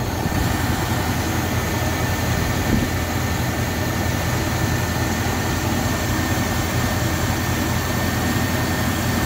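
Chevrolet 350 small-block V8 of a 1974 Chevy C30 one-ton truck idling steadily.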